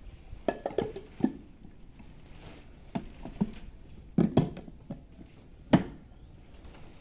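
Plastic lid and motor unit of a Fizler electric food chopper being fitted onto its glass bowl of cut tomatoes: a string of sharp clicks and knocks, the loudest near the end. The motor is not yet running.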